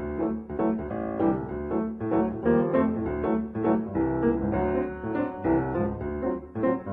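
Background music led by piano, with a steady pulse of note changes and no speech.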